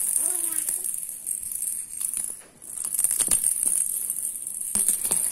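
Plastic ball rattle toy shaken by a baby, rattling and jingling in irregular spells with a brief pause midway. There is a short baby coo near the start.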